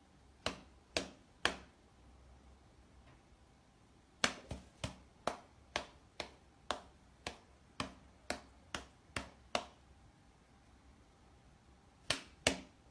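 A series of sharp, quiet clicks or taps at about two to three a second. There are three near the start, a longer run of about a dozen in the middle, and three more near the end.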